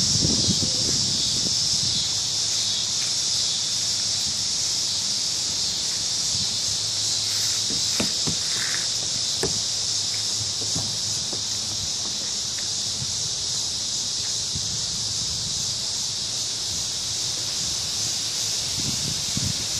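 Crickets singing in a cottonwood tree: a dense chorus heard as one steady, high-pitched, unbroken trill. A low rumble comes near the start and again near the end, and a few faint clicks fall in the middle.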